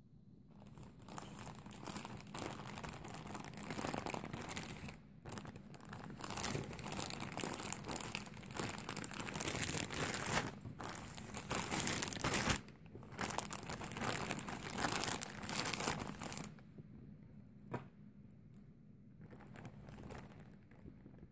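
Clear plastic bag of twisting balloons crinkling as it is handled and shifted, in uneven stretches for about sixteen seconds with a few brief pauses. Then only faint handling noise with a single click.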